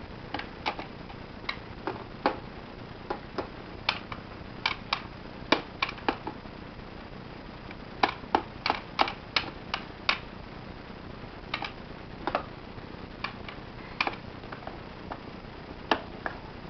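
A hard plastic ball tapped by hand against surfaces: irregular sharp taps, bunched in places into quick runs of about three a second.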